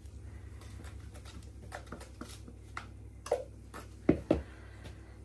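Wooden spoon tapping and scraping against a plastic jug and a glass jar of coffee grounds: a scatter of light clicks, with two louder knocks about four seconds in.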